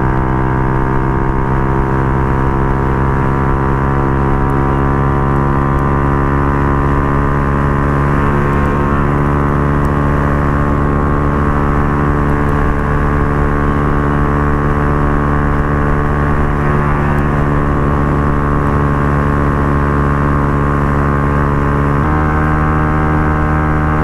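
Benelli RFS150i motorcycle with a racing-line aftermarket exhaust, running at steady cruising speed with a constant, even note. The note shifts abruptly near the end.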